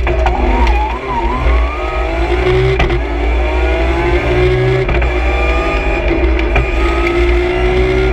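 BMW M3 E46 CSL's straight-six engine pulling hard, heard from inside the rally car's cabin, its pitch climbing steadily through a long run up the revs. A wavering whine in the first two seconds and two sharp knocks about three and five seconds in sit over the engine.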